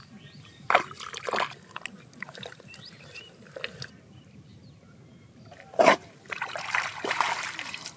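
Hands splashing and sloshing in shallow, muddy rice-paddy water while groping for crabs, with a few sharp splashes (about a second in and, loudest, about six seconds in) and a longer stretch of sloshing after the loudest one.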